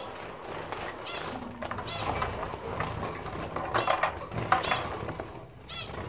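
Zebra finches giving a handful of short, nasal calls while a hand reaches into their small wire cage, with light rustling and clatter around the calls.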